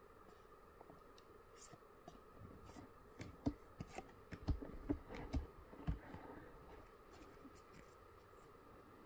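Trading cards being handled: cards slid off a stack one by one, with soft rubbing and light clicks, and a cluster of louder taps and knocks a few seconds in as cards are set down on the table.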